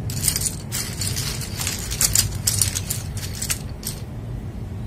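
PBT keycaps being handled and pressed onto a mechanical keyboard's switches: an irregular run of light plastic clicks and clacks, about three a second, loudest around two seconds in and sparser near the end.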